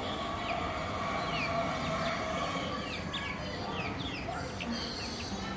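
Birds chirping, many short quick chirps one after another, over steady background noise.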